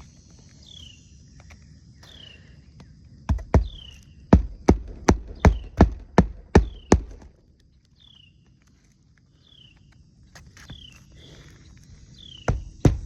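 Hammer blows on a roof, a run of about ten sharp strikes at two to three a second, then a second run starting near the end. Behind it a short falling chirp repeats about once a second over a faint steady high drone.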